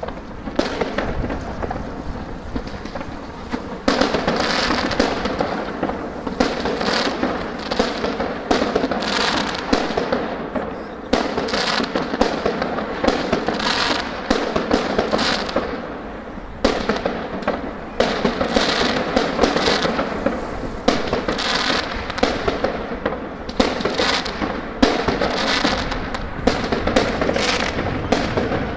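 Aerial fireworks bursting overhead: a dense, continuous crackle of shell bursts and crackling stars. It grows much louder about four seconds in, with fresh volleys swelling every second or two.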